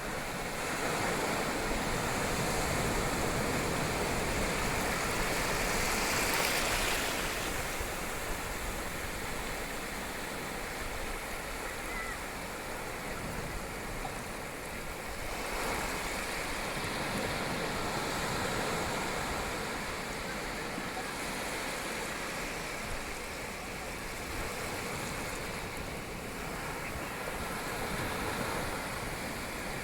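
Ocean waves washing onto a beach: a continuous rush of surf that swells and falls back every several seconds, loudest about six seconds in.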